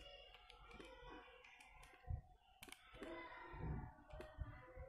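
Casio fx-991ES calculator keys being pressed while entering numbers: several soft, irregular clicks, with a couple of dull low thumps.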